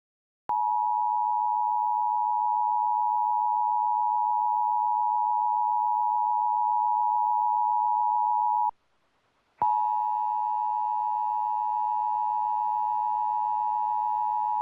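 Emergency Alert System two-tone attention signal: a steady, loud dual tone that holds for about eight seconds and cuts off sharply. After about a second's gap, a second steady tone near the same pitch, with fainter tones under it, sounds for about five seconds.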